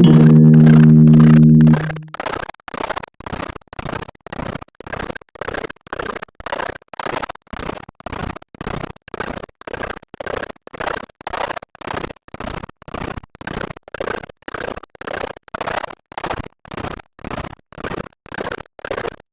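Loud bass-and-guitar music that stops just under two seconds in, followed by a steady train of short, noisy pulses, about two and a half a second.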